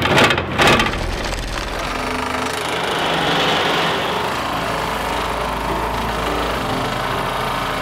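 Mini excavator running steadily under load as its bucket digs through soil, with a couple of sharp knocks in the first second.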